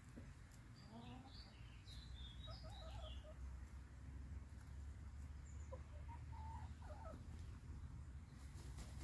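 Faint, soft chicken clucks around one to three seconds in and again about six seconds in, with a few small high bird chirps in the first three seconds, over a low steady rumble.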